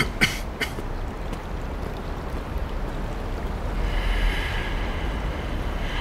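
Steady outdoor ambience by a river, with a low wind rumble. A few sharp footstep clicks of hard shoes on stone steps come in the first second. A higher, drawn-out sound comes in about four seconds in.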